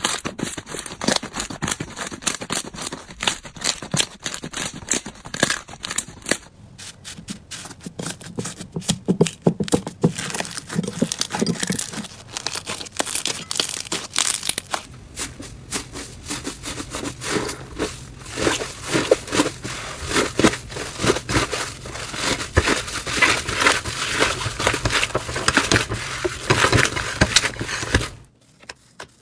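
Hands kneading and squeezing slime close to the microphone: a dense, fast run of small crackles, pops and squelches. The texture of the sound changes about six seconds in and again near the end, as one slime gives way to another.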